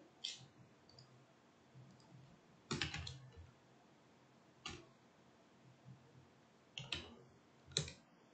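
Computer mouse clicks and keyboard key taps: a few separate sharp clicks, with a short cluster about three seconds in and two more near the end.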